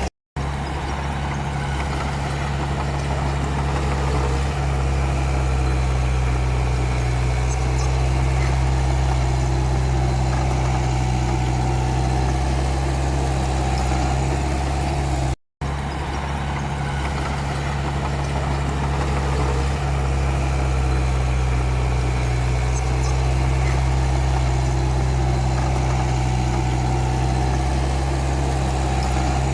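Komatsu D31P bulldozer's diesel engine running steadily with a deep, even drone. The sound cuts out for a fraction of a second just after the start and again about halfway through.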